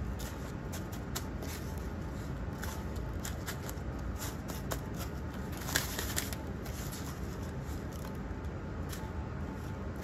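Panko breadcrumbs being pressed by a gloved hand onto battered chicken in a plastic tub: dry crumbs crunching and rustling in scattered small crackles over a low steady hum, with a louder cluster about six seconds in.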